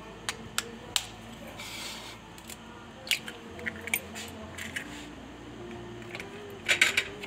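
Light clicks and taps as an egg is cracked on a ceramic bowl and its shell pulled apart, then near the end a quick burst of clatter as a wire hand whisk starts beating the batter against the bowl.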